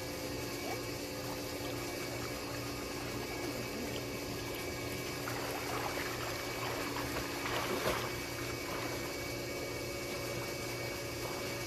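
Water sloshing and splashing as swimmers paddle through a pool, with a louder flurry of splashes about eight seconds in, over a steady machine hum.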